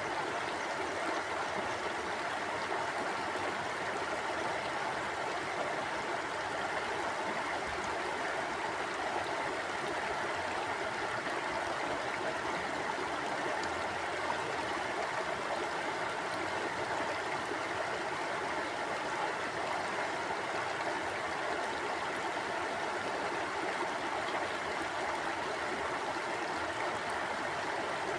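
Mountain river flowing over rocks: a steady rush of water with no change in level.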